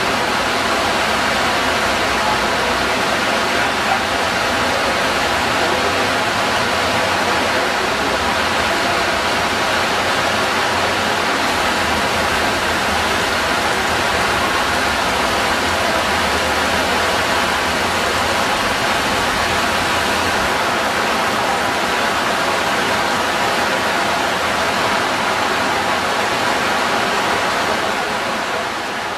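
Heavy rain pouring on trees and foliage: a loud, dense, even hiss that fades out near the end.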